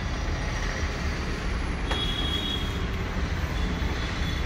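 Steady street traffic rumble, with a faint click about two seconds in.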